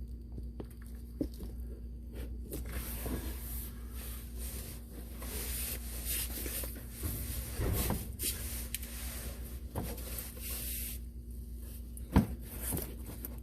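Irregular rubbing and scraping from hands working the oil filter free under the car, with a single sharp knock about twelve seconds in.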